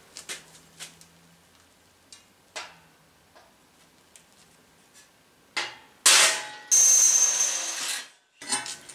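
Cordless drill boring a hole through the steel of a 5-gallon air-tank grill, running for about two seconds with a steady high whine and stopping abruptly. A few light taps and knocks come before it.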